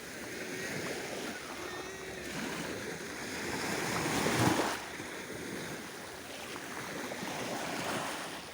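Small, gentle sea waves washing on the shore of an unusually calm sea. One swell builds to its loudest about four and a half seconds in, then drops away suddenly.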